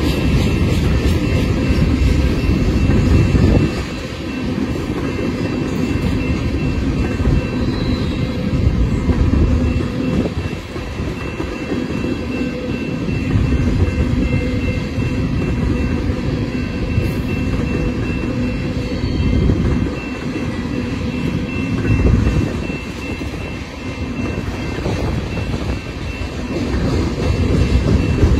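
Tank cars of a freight train rolling past: a steady low rumble of steel wheels on the rails that swells and dips as the cars go by, with a faint thin steady tone above it.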